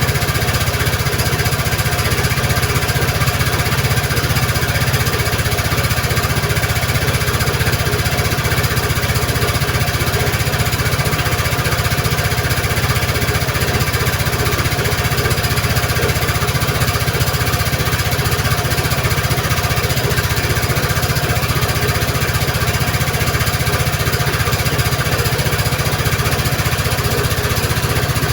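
Kymco Like 150i scooter's single-cylinder engine idling steadily with a fast, even pulse, running again now that its defective fuel pump has been replaced.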